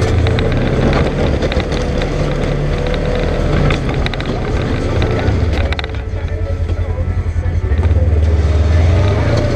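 Polaris General XP side-by-side's engine running steadily, with scattered clicks early on; about six seconds in the sound dips and pulses briefly, then settles back to a steady run.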